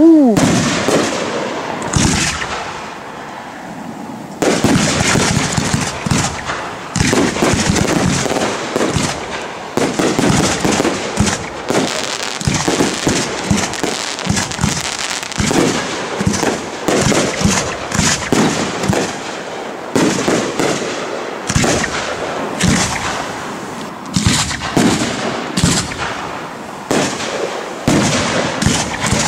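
Aerial fireworks display: a short falling whistle and a loud shell burst at the start, then, from about four seconds in, a dense barrage of shell bursts going off in quick, irregular succession with crackle between the bangs.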